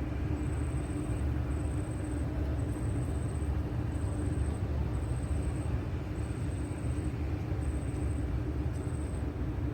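A steady low motor drone with a constant hum, under a faint high-pitched tone that pulses on and off about once a second.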